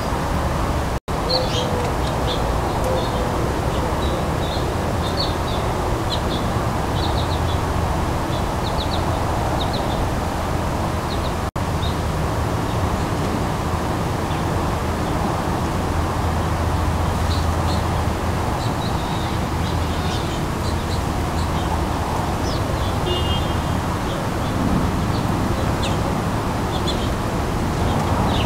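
Small birds chirping in short, scattered bursts over a steady background rumble. The sound cuts out for an instant twice, about a second in and again near the middle.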